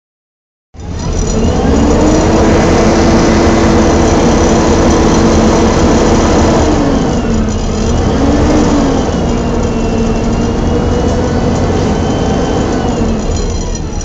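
Inside a Volvo B7TL double-decker bus under way: the steady hoover-like drone of the engine cooling fan, with the Voith automatic gearbox whining over it. The whine holds steady, drops about halfway through, rises and falls briefly, then settles lower.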